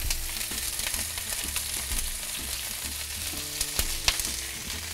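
Pork loin searing in hot olive oil in a frying pan: a steady sizzle with spitting crackles, and two sharp clicks about four seconds in.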